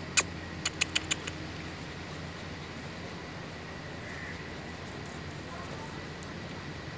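A quick run of sharp clicks in the first second and a half, the first loudest and the rest fading, then only a steady low hum of background noise.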